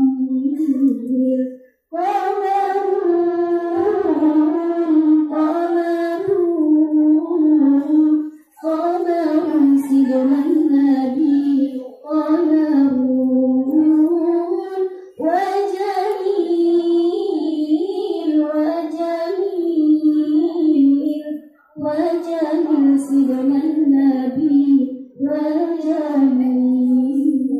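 Girls' voices singing an Islamic sholawat into microphones, unaccompanied. The melody runs in long ornamented phrases separated by short breaths.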